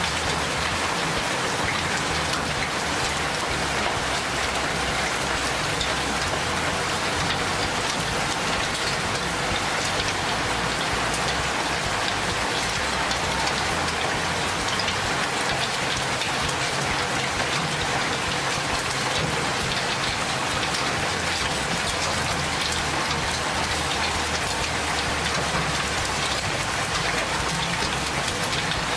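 Small hail, no bigger than a fingernail, falling steadily with rain: a dense, even mass of tiny impacts that keeps up without let-up.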